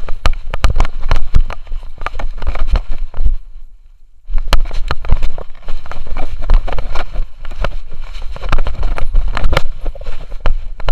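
A dog running and scrambling, heard from an action camera strapped to its body: a rapid, uneven clatter of paw and claw impacts on the floor, with the camera mount knocking and rubbing against the dog. The running stops briefly about three and a half seconds in, then starts again.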